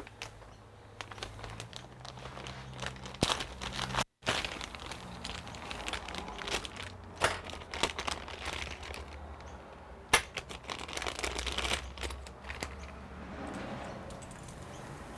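Packaging crinkling and rustling as it is handled, with irregular clicks and knocks from the parts.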